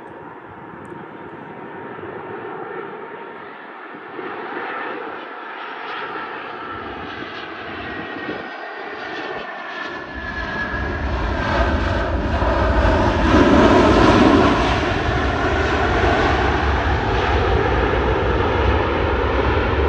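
Jet airliner on landing approach, its engine noise growing steadily louder as it comes in low and passes close by, loudest about two-thirds of the way through. Slowly sweeping whining tones ride on the roar, and a deep rumble joins about halfway through and carries on to the end.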